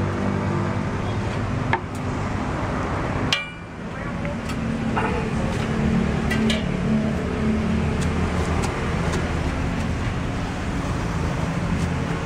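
Steady street-side background of passing traffic and engine hum, with a few sharp clicks and knocks of kitchen utensils on the stall's counter.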